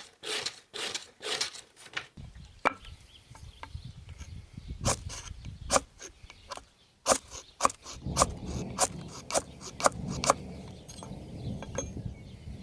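Knife blade drawn along a Gossman sharpening steel in quick scraping strokes, about three a second, which stop about two seconds in. After that come scattered sharp clicks and knocks, some with a short ringing, over a low rumble.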